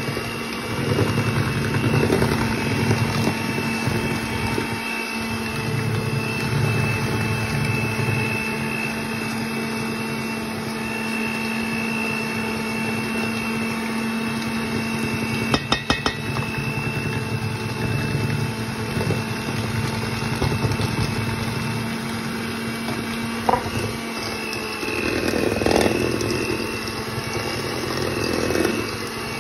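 Electric hand mixer running steadily, its beaters churning dry, crumbly cookie dough in a stainless steel bowl, with a constant motor whine. A few sharp clicks come about halfway through.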